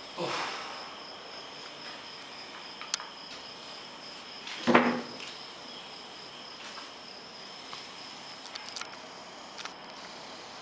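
A cricket chirring steadily at a high pitch in the background, with a few faint handling clicks and one brief louder sound a little under halfway through.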